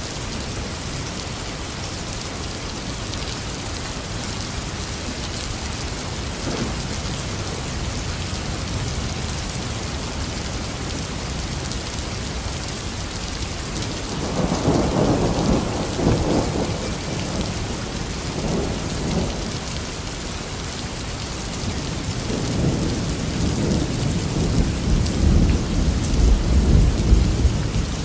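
Heavy rain falling steadily, with rolling thunder: a rumble about halfway through, a weaker one soon after, and a longer, deeper, louder rumble building near the end.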